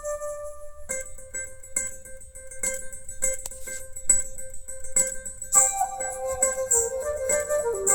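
Recorded music played back over a pair of hi-fi speakers driven by a stereo amplifier. A plucked-string instrument picks out a run of notes, starting about a second in after a held note.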